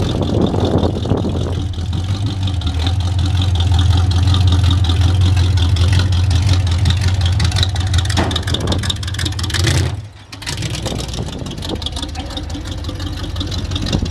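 Rat rod pickup's engine running with a deep, steady drone as the truck drives across gravel. The sound drops out for a moment about ten seconds in, then the engine carries on.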